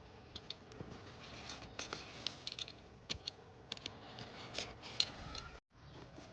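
Packaging being handled and opened by hand: a run of scattered small clicks, taps and scratchy rustles, briefly breaking off near the end.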